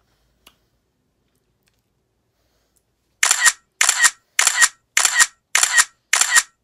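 Camera shutter sound effect firing over and over, each shot a quick double click, about one every 0.6 seconds, starting a little past halfway. Before that it is near silent apart from one faint click.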